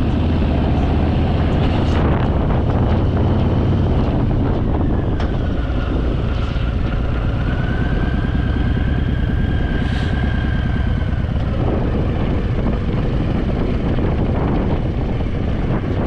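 Harley-Davidson Fat Boy's V-twin engine running steadily while riding, with wind noise over the microphone.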